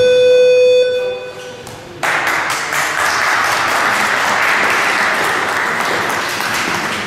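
A boxing round bell rings once, a single tone that dies away over about two seconds, marking the end of the round. About two seconds in, applause starts and carries on.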